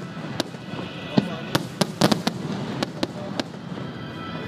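Aerial firework shells bursting in quick succession: about ten sharp bangs, the loudest a little after one second and around two seconds in, thinning out about three and a half seconds in.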